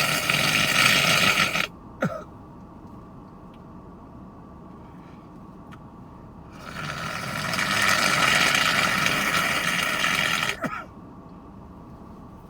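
A person with a congested head cold blowing their nose hard into a tissue twice. The first long blow ends just under two seconds in, and a second one lasts about four seconds from around the middle.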